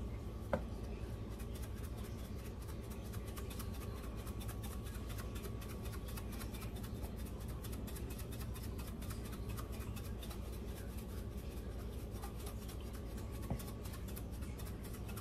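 Pepper mill being turned over the salad, a fast run of small grinding ticks, over a steady low hum. A single sharper click comes about half a second in and another near the end.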